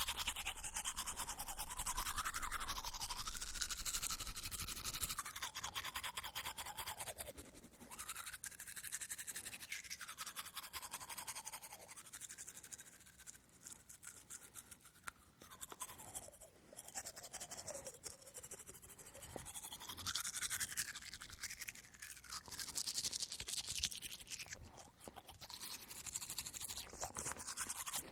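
A toothbrush scrubbing teeth in rapid back-and-forth strokes, the wet bristle sound changing in tone as the brush moves around the mouth, with a few softer stretches.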